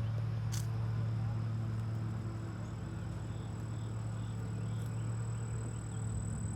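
A steady low hum, as of an engine or motor running, which starts suddenly, over a faint, steady high-pitched insect drone.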